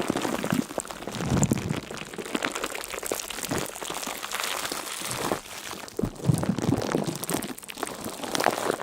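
Dense, irregular crackling and crunching with many small sharp clicks over a soft hiss.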